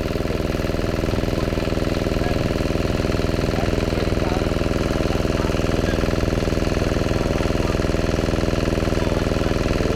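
Generator engine running at a steady speed, an even hum with a fast firing beat.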